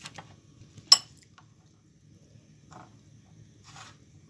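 A metal spoon handled in a glass bowl of warm milk: a sharp tap about a second in, then two faint brief scrapes.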